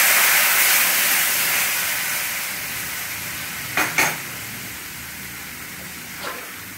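Hot tempering oil in a frying pan sizzling loudly as water is poured in, the hiss dying down steadily as the water takes up the heat. Two sharp taps close together about four seconds in.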